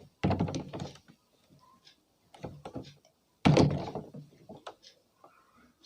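A heavy stone of about 10 kg knocking and thudding as it is set down and settled on top of a toy tractor: a few heavy thunks, loudest near the start and about three and a half seconds in, with lighter knocks between.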